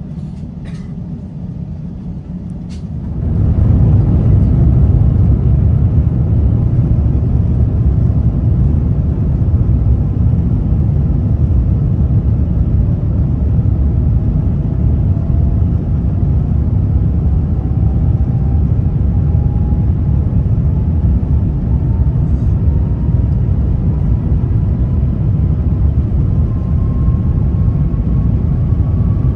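Airbus A350-900 cabin during the takeoff roll. About three seconds in, the Rolls-Royce Trent XWB engines spool up to takeoff power, and a loud, steady rumble follows, with a faint tone slowly rising in pitch in the second half.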